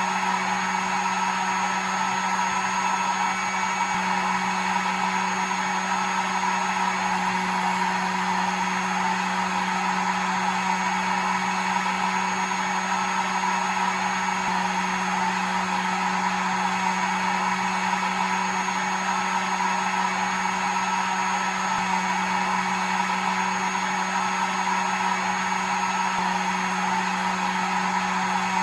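Hair dryer running steadily: an even rush of blown air over a constant low motor hum and a faint high whine.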